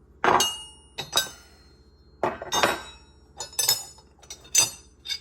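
Steel hand tools clanking and clinking against each other as they are handled, about six sharp metallic knocks, some ringing briefly.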